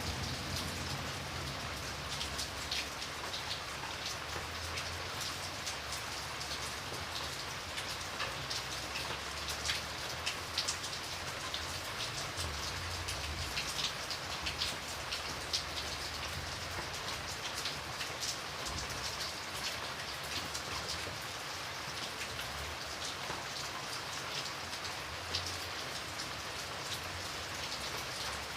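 Steady rain falling, with many separate drops ticking sharply on a hard surface over a constant hiss and a soft low rumble.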